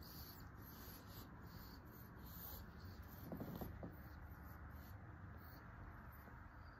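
Faint rubbing and rustling close to the microphone, with a brief low grunt about three seconds in.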